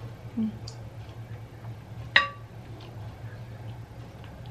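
A spoon clinks sharply once against a ceramic or glass bowl about two seconds in, ringing briefly. Fainter clicks of tableware come over a steady low hum.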